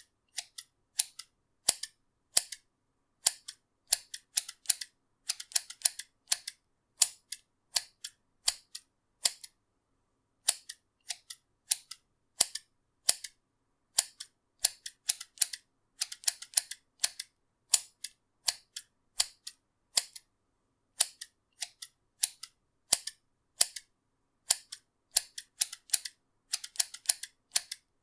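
Scissors snipping: a long run of short, sharp metallic snips, irregularly spaced, some in quick pairs or clusters, with silence between them.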